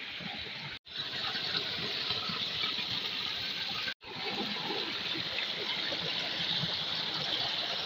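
Shallow forest stream rushing and splashing over rocks close to the microphone, a steady rush that cuts out briefly twice, about one second and about four seconds in.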